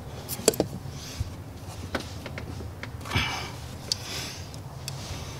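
Scattered light clicks and taps of hands working a rubber coolant hose and its fittings in an engine bay, with a couple of short breaths, over a low steady hum.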